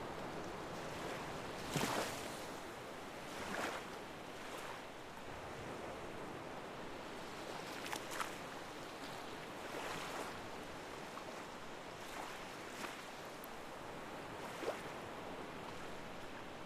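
Steady rush of water with small waves washing and splashing at irregular moments every couple of seconds.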